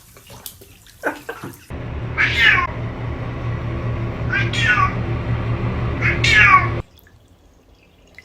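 Domestic cat meowing three times, each call falling in pitch, over a steady low hum that starts and cuts off suddenly.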